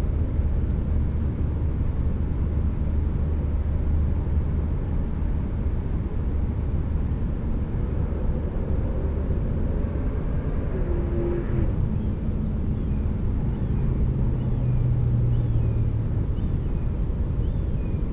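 Steady low rumble of distant engine noise. About ten seconds in, a passing engine tone rises out of it and falls in pitch over several seconds before fading.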